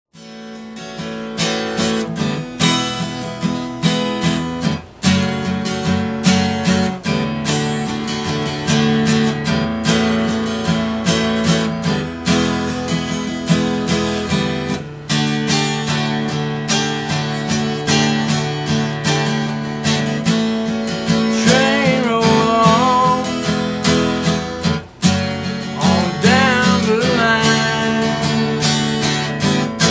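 Martin acoustic guitar strummed through a chord progression, fading up at the start, with brief breaks in the strumming about five, fifteen and twenty-five seconds in.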